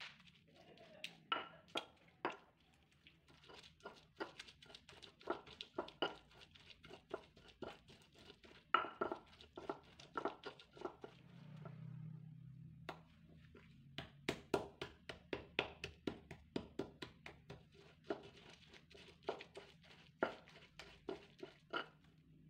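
Stone pestle knocking and grinding against a stone mortar as it crushes chillies and tomatoes into sambal: an irregular run of sharp knocks, a few a second, with a short break about halfway through.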